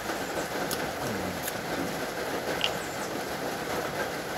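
Steady hiss of rain falling, with a few faint clicks from a knife working mustard onto crackers.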